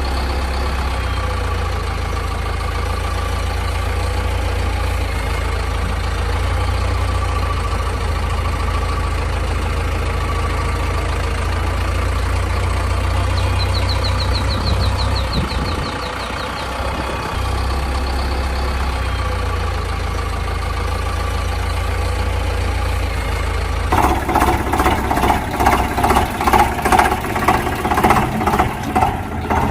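An engine idling with a steady low drone. About 24 seconds in, it gives way to a rhythmic pulsing sound.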